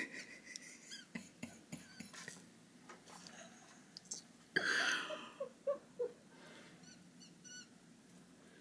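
Border Terrier moving about in snow: a run of soft crunching clicks, then a louder noisy huff about halfway through. A few faint short squeaks follow near the end.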